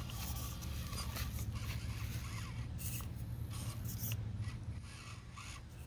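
Small-scale RC rock crawlers working at a rock face: scattered clicks and scrapes of tires and chassis on the rock over a steady low hum.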